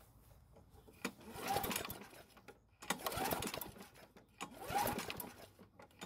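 Briggs & Stratton mower engine being pull-started by its recoil rope three times, each pull about a second long, beginning with a click, and a fourth pull starting at the end. The engine turns over but never fires: a no-start that the owner traces to bad gas in the tank.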